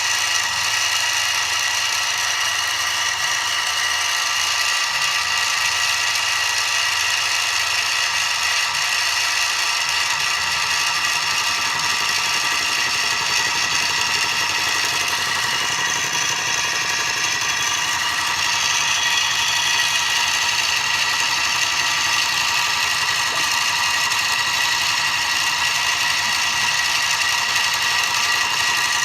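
Mini milling machine cutting 6061 aluminium: a steady mechanical whine with several high tones over a rattling noise from the spindle and cutter. A lower hum joins about ten seconds in.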